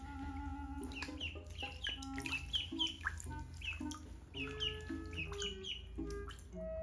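Ducklings peeping: many short, falling peeps, about three a second, over soft background music with held notes.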